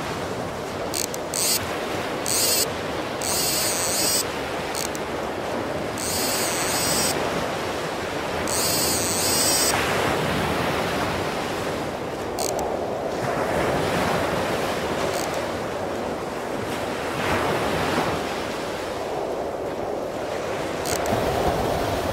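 Surf breaking on the beach and wind on the microphone, with several short high-pitched bursts in the first half from the spinning reel's drag as a hooked leerfish pulls line.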